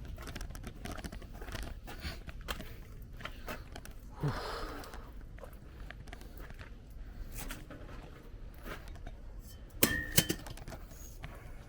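Hand work on truck parts: scattered light clicks and knocks of metal and plastic being handled, a short scrape about four seconds in, and two sharp metallic clicks about ten seconds in.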